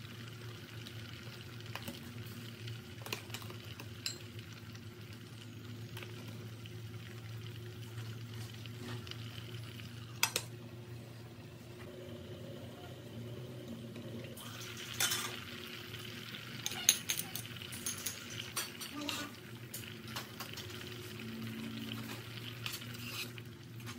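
A metal ladle stirs a simmering shrimp and fish amok curry and knocks against the pot, with clinks from a glass pot lid. Sharp clinks stand out about ten seconds in and again between about fifteen and nineteen seconds, the loudest near seventeen seconds. A steady low hum runs underneath.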